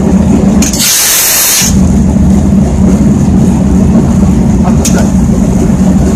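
Diesel engine of a TU2 narrow-gauge locomotive running steadily, heard from inside the cab while the locomotive moves slowly. About a second in there is a hiss lasting roughly a second, and another begins right at the end.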